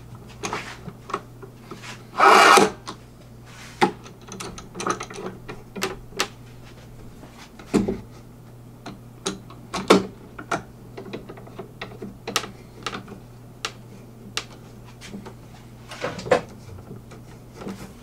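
Wooden hive boxes and bar clamps being handled on a workbench during glue-up: scattered knocks and clicks of wood and clamp jaws, with a longer scraping rub about two seconds in, over a steady low hum.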